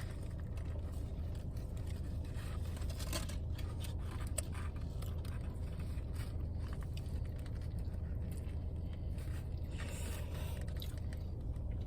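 Small scrapes and clicks of food and its paper wrapping being handled during eating, over a steady low hum.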